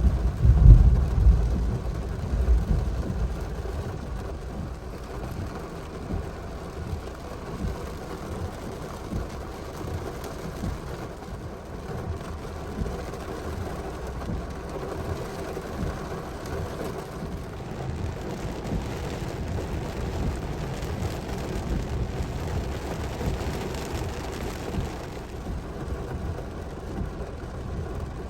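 Thunder rumbling, loudest about a second in and dying away over the next two seconds, followed by a steady low rumble with a light haze of rain-like noise.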